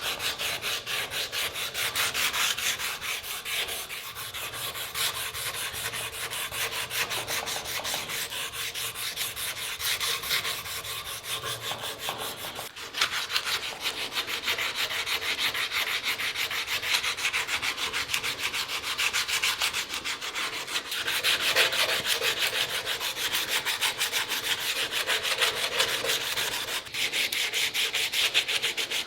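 Hand sanding with fast, even back-and-forth strokes, an abrasive rubbing that runs on without pause.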